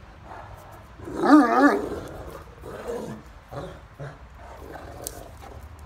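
A Great Dane talking: a loud, warbling moan whose pitch wavers up and down, about a second in, followed by shorter, quieter grumbles and growly sounds.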